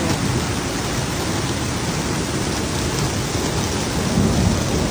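Heavy rain falling with a steady hiss and a low rumble underneath.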